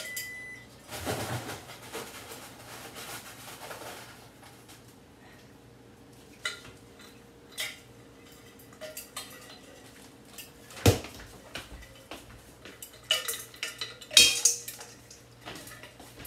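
Dishes and cutlery clattering while food is plated: scattered clinks and knocks, with one sharp knock about eleven seconds in and a quick run of clinks near the end.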